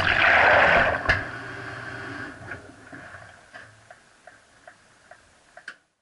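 Top-loading washing machine heard from inside its tub as it winds down: a loud rushing hiss for about a second, a knock, then the sound fades to a string of light ticks, about two a second.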